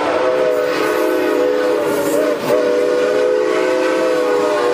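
A passing train sounding a long, steady multi-note horn, with a brief dip about two and a half seconds in.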